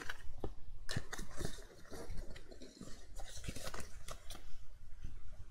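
Stiff cardstock pieces being handled, flexed and set down on a cutting mat: a run of scattered paper rustles and light taps.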